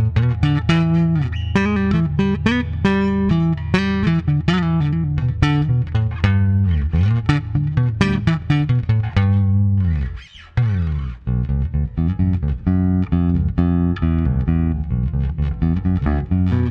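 Fender Player Precision Bass played fingerstyle through its split-coil pickup, a busy line of plucked notes with a short break about ten seconds in.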